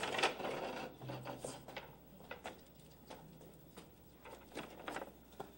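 Scattered light knocks and scuffs of a ladder being carried through a gateway, with footsteps.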